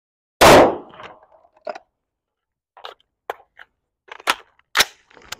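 A single pistol shot from a Shadow Systems MR920 9mm handgun about half a second in, echoing briefly. It is followed by a scattering of light clicks and clacks as the rifle and gear are handled and the rifle is brought back up.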